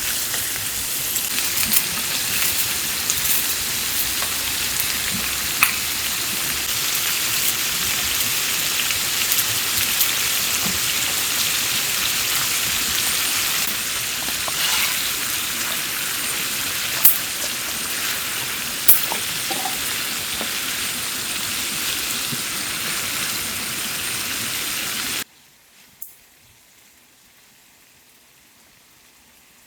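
Food sizzling in a frying pan: a steady hiss with a few sharp pops, cutting off abruptly near the end to a much quieter background.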